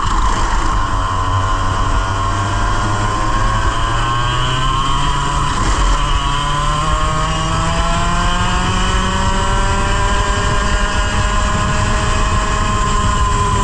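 100cc two-stroke racing kart engine heard onboard at full throttle, its pitch climbing steadily for several seconds, dropping briefly about six seconds in, then climbing again.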